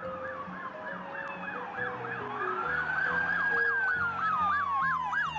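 Police siren: a fast yelp sweeping up and down several times a second, layered with a slower wail that rises and falls, over light background music.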